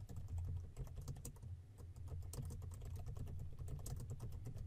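Typing on a computer keyboard: a fast, uneven run of key clicks as a line of text is entered.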